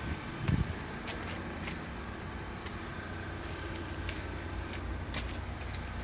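Steady low outdoor background rumble, with a soft thump about half a second in and a few faint ticks.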